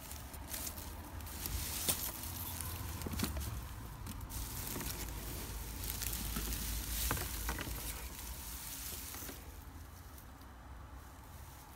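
Dry straw bedding rustling and crackling as a hand and a rabbit stir through it, with many small irregular crackles. It dies down about two seconds before the end.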